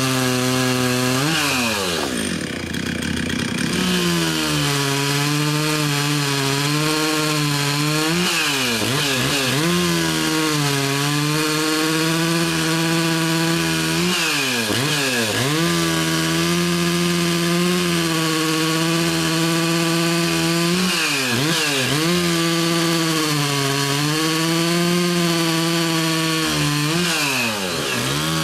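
Stihl 036 two-stroke chainsaw running at high revs as its sharp Oregon 72JGX skip-tooth chain cuts through a log. The engine pitch drops and climbs back about five times.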